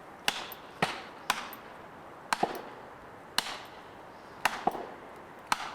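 Sharp blows struck on wood, about eight in all at roughly one-second intervals, two in quick succession near the end.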